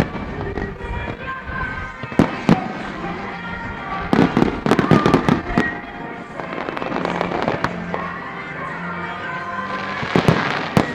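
Display fireworks bursting: sharp bangs about two seconds in, a dense run of bangs and crackle from about four to five and a half seconds, and another burst near the end, with music playing throughout.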